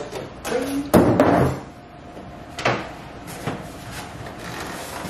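Stiff white packaging inserts being pulled off an iMac and handled: a few knocks and scrapes, the loudest about a second in and another sharp knock a little before the end.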